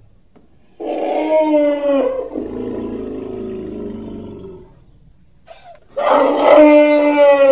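Elephant-like trumpeting call given as that of the extinct American mastodon, which means it is a reconstruction. A loud, steady-pitched trumpet blast lasts about a second and a half, slides into a lower rumbling growl for a couple of seconds, and a second trumpet blast starts about six seconds in.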